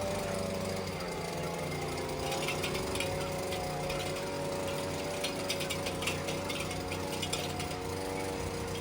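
Steady mechanical hum with a few held tones, joined about two seconds in by an irregular rattle of rapid clicks.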